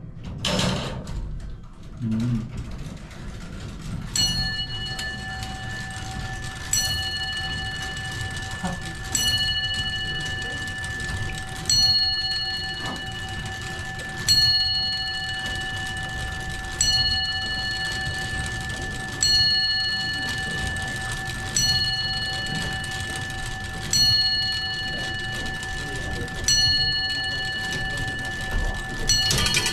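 Large clock-tower bell striking the hour, ten strokes about two and a half seconds apart, each leaving a long ringing hum that carries on between strokes. Two low thuds come before the first stroke.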